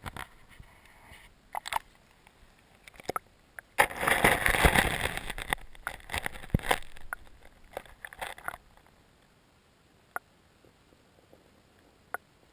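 Knocks as an action camera is handled at the water's edge, then about four seconds in a loud rush of splashing and churning water as it is pushed under the lake surface, dying away in ragged bursts. After that only a faint underwater background with a few light ticks.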